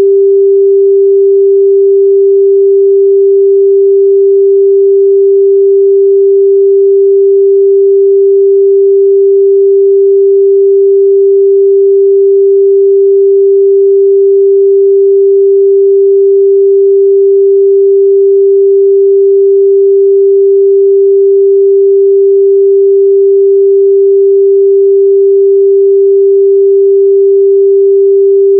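A steady, pure 394 Hz sine-wave test tone, held at one pitch and a constant loud level.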